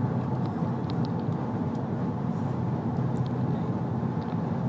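Steady low road and engine noise inside the cabin of a moving car.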